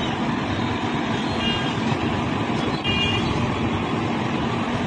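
Steady mechanical hum and rumble of a locomotive standing still with its engine or equipment running.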